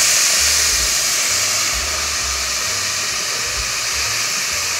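Blended tomato sauce sizzling as it is poured into a hot pot of browned ground beef: a loud, steady hiss that eases slightly about two seconds in.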